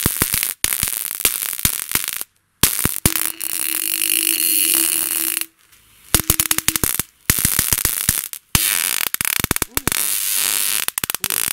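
High-voltage sparks from a homemade million-volt generator (transformer and voltage multiplier), snapping and crackling in rapid irregular bursts as discharges arc over a plastic bottle of tap water. A faint steady hum runs under part of it, and the sound breaks off abruptly three times.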